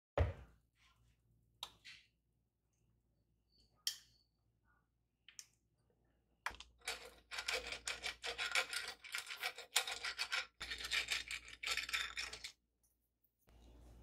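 Silicone pastry brush scrubbing over the grid plates of an Elekta electric waffle maker in rapid scratchy back-and-forth strokes. The strokes start about six seconds in, pause briefly and stop near the end. Before them there is a sharp knock at the very start and a few light clicks.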